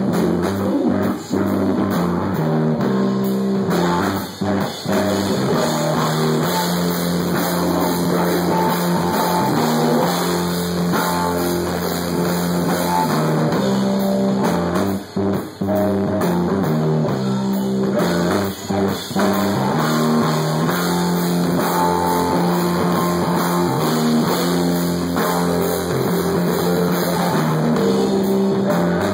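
Live stoner-metal band playing: an electric guitar riff with bass and drum kit, broken several times by short stops.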